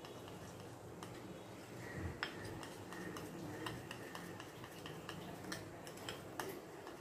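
A spoon stirring milk into milk powder in a small glass bowl, with faint scattered clicks and taps of the spoon against the glass, one sharper tap about two seconds in.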